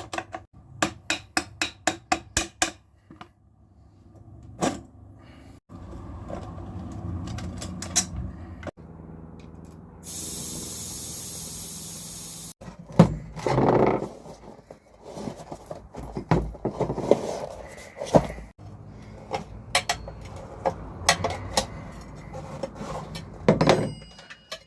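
Clatter of hand tools working on a dirt-bike wheel: a quick run of sharp clicks and knocks at the start, more scattered knocks later, and a steady hiss for about two and a half seconds about ten seconds in.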